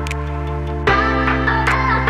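Background music: sustained electronic chords that change to a new, louder chord just under a second in.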